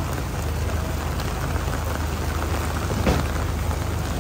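Heavy rain falling steadily, with a low steady hum underneath and a single sharp knock about three seconds in.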